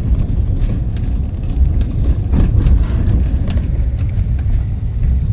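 Inside a vehicle driving a rough, unpaved road: a steady heavy low road rumble, with scattered knocks and rattles as it jolts over bumps.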